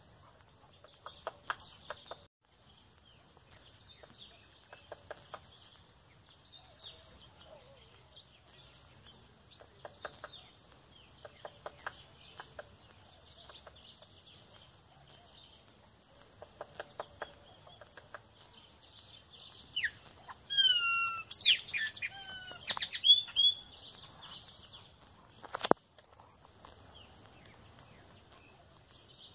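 Woodpecker hammering on wood with its bill in short quick series of blows, repeated every few seconds. About two-thirds of the way through, loud bird calls with sliding notes come in, followed by a single sharp knock.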